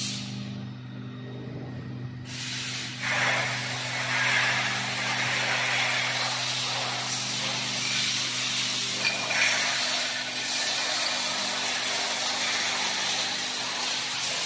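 Steady machine hum, joined about two seconds in by a loud, continuous hiss that runs on unbroken.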